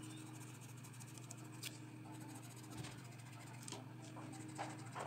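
Pencil scratching on paper in a few short, separate shading strokes, faint over a steady low hum.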